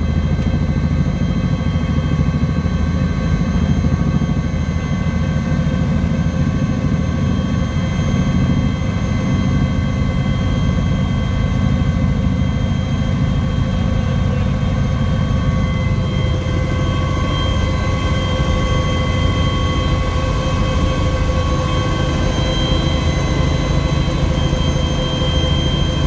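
Cabin noise of a Kawasaki-Vertol KV-107 (HKP 4) tandem-rotor helicopter climbing after take-off: a steady, loud low rotor rumble under several steady high turbine and gearbox whines.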